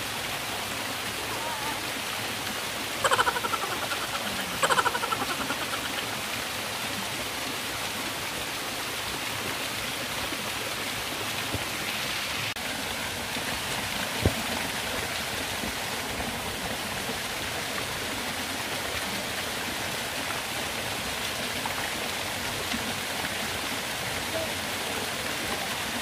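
Small waterfall spilling down a rock face into a shallow pool: a steady rush of falling and running water. A person's voice calls out twice, briefly and loudly, about three and five seconds in.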